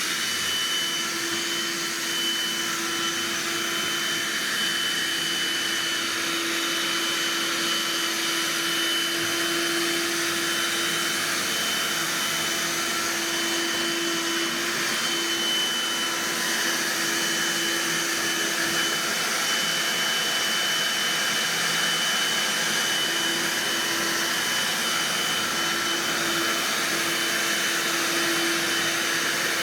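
Handheld car vacuum cleaner running steadily with a constant whine, vacuuming dust and lint out of a knitting machine.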